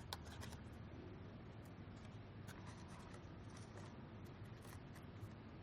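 Faint rubbing and scattered light clicks of carbon fibre tape being peeled off cable plugs.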